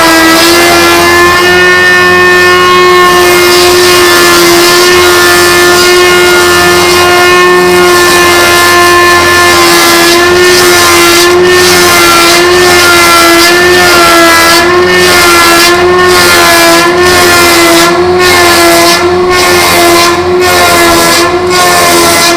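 Homemade log-rounding machine running under test: a loud, steady whine with a fixed pitch. From about halfway through, the hissy part of the sound dips regularly, about once a second.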